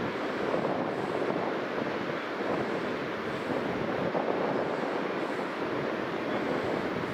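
Steady rushing noise of sea surf and wind, with wind buffeting the microphone.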